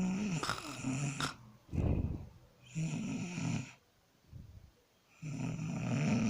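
Snoring: a series of pitched snores, each about a second long. There is a shorter, lower breathy burst about two seconds in, and a pause of more than a second before the last snore near the end.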